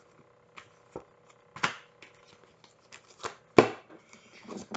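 Tarot cards being handled and shuffled: a few separate card snaps and slaps, the loudest about three and a half seconds in, then quicker riffling near the end.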